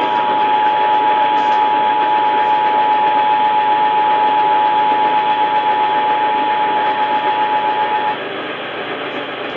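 Emergency Alert System attention signal: two steady tones sounding together, cutting off about eight seconds in. A constant hiss from the received radio broadcast runs underneath and goes on after the tones stop.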